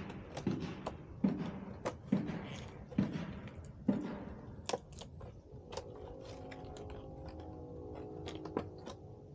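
Short sharp clicks and rustles of a small object being handled, about two a second at first and sparser later, with a faint steady hum of several tones in the last few seconds.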